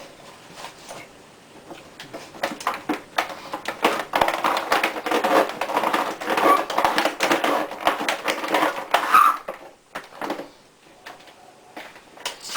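Plastic boilie rolling table worked back and forth by hand over paste sausages: a rapid clattering and scraping that starts about two seconds in and stops suddenly near the end.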